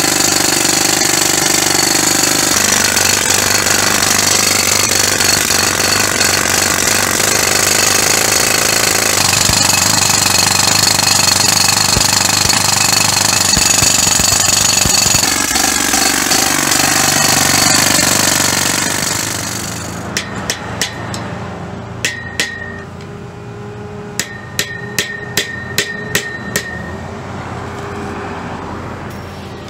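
Hand-held pneumatic breaker (air-powered jackhammer) chiseling into concrete, a loud continuous rattle that stops about two-thirds of the way in. Then about a dozen sharp hammer blows on a square perforated steel sign post, several leaving a short metallic ring.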